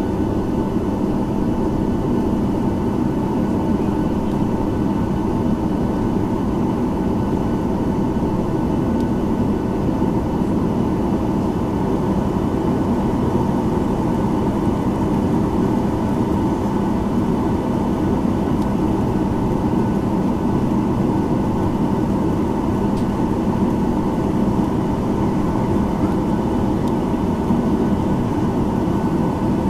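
Steady drone inside the cabin of a Boeing 737-900ER airliner on the ground, a constant hum with several high whining tones held unchanged throughout.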